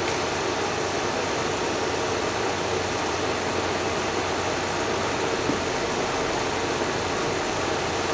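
Air conditioner running: a loud, steady, unchanging noise with a low hum under it.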